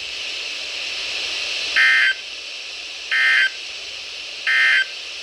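NOAA Weather Radio sending the Emergency Alert System end-of-message data code: three short bursts of electronic data tones, about a second and a third apart, over steady radio hiss. They mark the end of the required weekly test.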